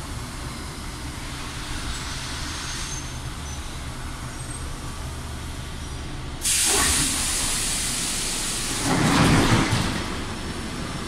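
Subway car standing at a platform with a low steady hum, then a sudden loud hiss of compressed air about six seconds in as the pneumatic doors open, with a louder burst of air and noise around nine seconds.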